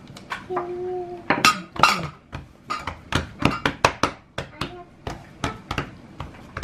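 Rapid light clicks and clinks of hard objects in a kitchen, several a second and uneven, starting about a second and a half in. A short hummed note comes just before them.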